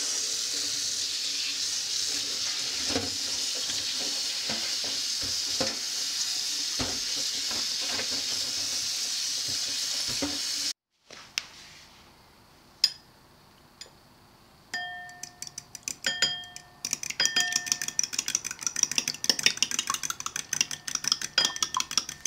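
Tap water running onto a cauliflower in a stainless steel colander, a steady hiss that cuts off suddenly about eleven seconds in. Then a fork strikes a bowl three times, each strike ringing, and goes into rapid clinking strokes as it beats two eggs.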